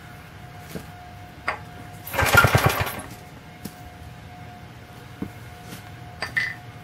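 Cast iron Briggs & Stratton single-cylinder engine on a Planet Jr. Model B walk-behind tractor being pull-started with a rope wound on the flywheel pulley. About two seconds in, one pull cranks it over in a quick run of chuffs lasting under a second, and it does not keep running. This is a first start attempt after the carburetor and points were cleaned.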